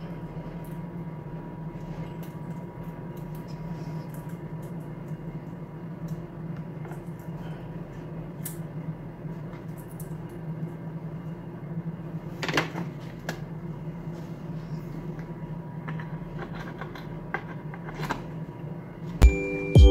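Light plastic clicks and knocks of chainsaw cover parts being handled and fitted, one stronger click about two-thirds of the way in, over a steady low hum in a small room. A sudden loud hit comes near the end.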